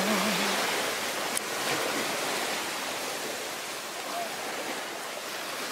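Steady rushing noise, slowly fading, with the last note of a song dying out in the first half second.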